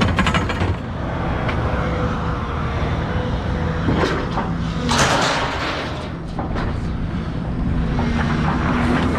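Vehicle engine running steadily at idle, with a few sharp knocks and a burst of clattering, like scrap metal being handled, about five seconds in.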